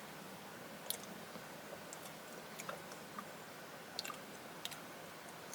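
A person chewing raw bird leg meat: faint, scattered clicks spaced a second or more apart.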